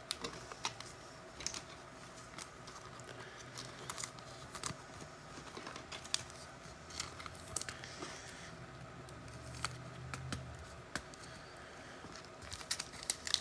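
Faint scattered clicks and light rustling of trading cards and pack wrappers being handled, over a low steady hum.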